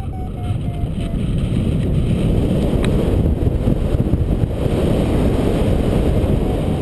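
Airflow of a paraglider in flight buffeting the microphone as a heavy, rough low rumble. A paragliding variometer beeps in a fast, even series at one tone that sinks slightly, stopping about a second in and starting again near the end.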